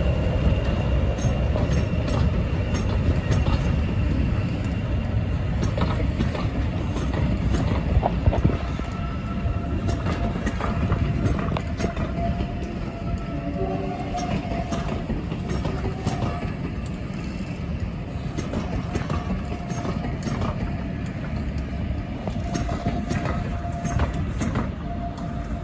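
Class 40 diesel-electric locomotive's English Electric 16-cylinder engine working as it pulls away, its note and a high steady whistle fading over the first few seconds. Then a rake of passenger coaches rolls past with a steady rumble and repeated clicks of the wheels over the rail joints.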